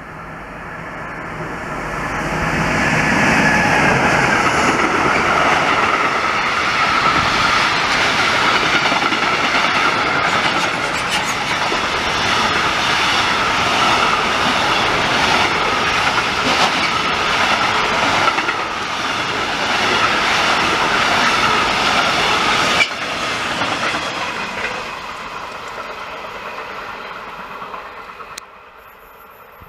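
Long freight train passing close by at speed behind an electric locomotive: loud, steady rolling of wagon wheels on the rails with a clattering rhythm over the rail joints. It builds over the first few seconds, drops abruptly about 23 seconds in, then fades away.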